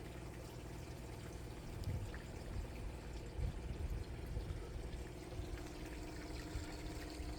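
Pumped water pouring steadily into an aquaponics flood-and-drain grow bed as it fills. A few low thumps come about two seconds and four seconds in.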